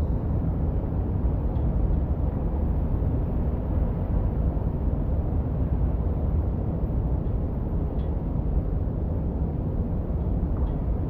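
Steady low rumble of a wet city street in the rain, with a faint hiss above it and no distinct events.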